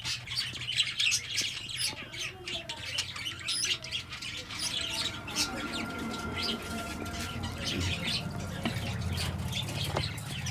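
Aviary of budgerigars chirping and squawking in many short, overlapping calls, busiest in the first half, over a low steady hum that grows louder toward the end.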